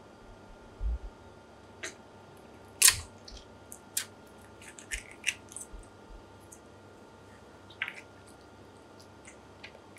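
Hands working a live golden cuttlefish on a wooden cutting board, pushing its cuttlebone out from the tail end: scattered wet clicks and squelches. There is a low knock about a second in and a sharp click about three seconds in, the loudest sound.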